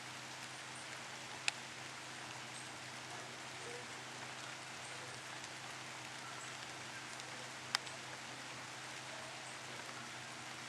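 Steady, even hiss of water, like rain or running floodwater, with two sharp clicks, one about a second and a half in and one near the end.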